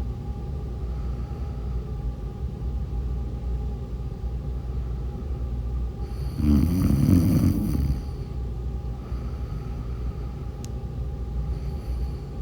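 A woman snoring in her sleep: one loud snore about six seconds in, lasting about a second and a half, with softer breaths either side, over a steady low background hum.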